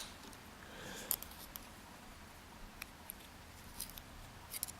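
A few faint, scattered small metallic clicks and ticks as the springs and pins are taken out of a Euro cylinder lock.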